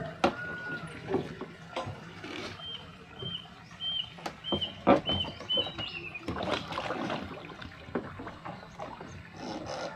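Water splashing and knocks from a fish trap being hauled up beside a boat. Through the middle a bird chirps in short, repeated high notes, two or three a second.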